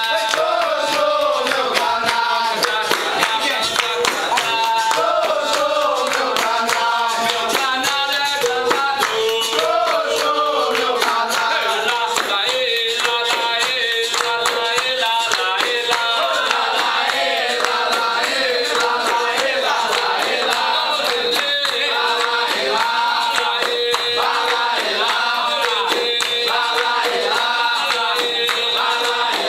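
Capoeira roda music: a group of voices singing a chorus together over berimbau, pandeiro and hand clapping.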